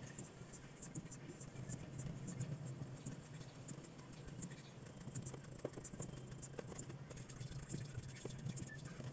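Rain hitting a car's roof and windshield, heard from inside the cabin: many light, irregular ticks over a low steady hum.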